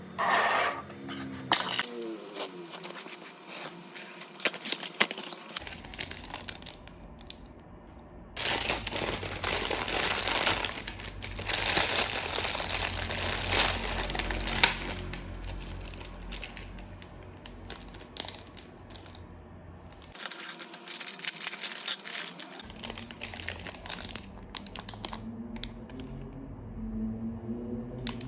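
Plastic packaging crinkling and tearing as parcels are unboxed, with scattered light clicks and clinks of small items being handled. The rustling is loudest from about a third of the way in to about halfway.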